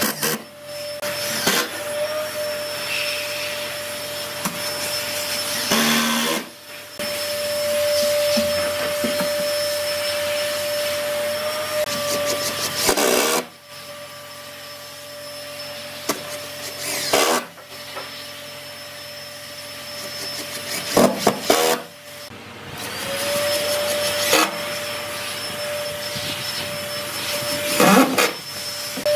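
Cordless drill motor whining steadily as it drives long screws into pine planks. The whine runs for several seconds at a time, stops abruptly several times, and rises in pitch as it spins up again near the end.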